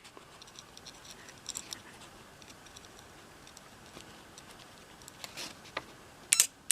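Faint scratching and ticking of test leads being handled on a small electromechanical relay, with a few sharp clicks near the end as the leads make contact and the relay is energised.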